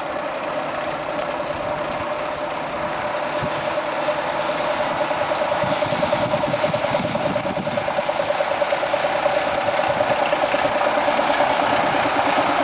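An engine running with a fast, even pulse, growing steadily louder.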